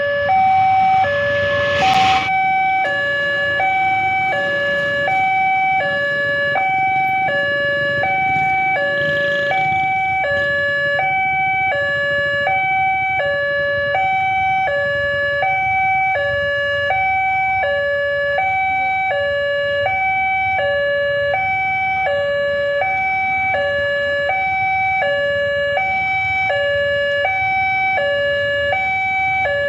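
Railroad level crossing electronic warning alarm, sounding from a horn loudspeaker on the signal post, alternating steadily between two pitches in a high-low pattern, each tone lasting about two thirds of a second. It warns that a train is approaching and the barriers are down. A sharp click about two seconds in.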